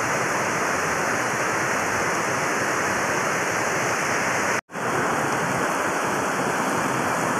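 Heavy tropical downpour on a flooded street: a steady, dense hiss of rain pouring onto standing and running floodwater. The sound drops out for a moment about two-thirds of the way through, then resumes unchanged.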